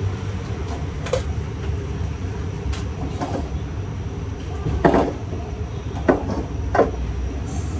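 Light knocks and clatters of a metal frying pan and a wooden spatula on a gas stove's burner grate, about six in all, the loudest about five seconds in, over a steady low rumble.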